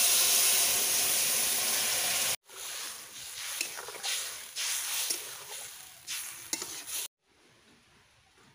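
Water poured into a hot wok of fried, spiced potato and plantain hisses and sizzles loudly for about two seconds, then cuts off suddenly. Then a metal spatula stirs the thin curry in the wok, with a weaker sizzle and light scrapes that fade, and the last second or so is quiet.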